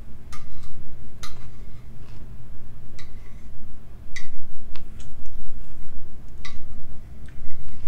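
A spoon clinking against a bowl while someone eats, about six light clinks at irregular intervals, over a steady low hum.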